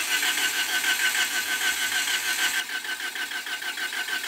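Starter motor cranking a four-cylinder car engine, turning it over with an even rhythm of pulses, without the engine catching. The cranking gets quieter about two and a half seconds in.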